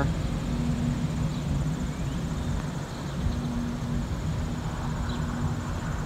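Steady low mechanical hum with a held tone that drops out and comes back, under a faint, steady, high-pitched insect trill.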